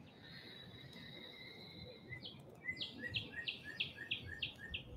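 A songbird singing faintly: a thin, held high note, then a run of about eight quick downslurred notes at roughly three a second.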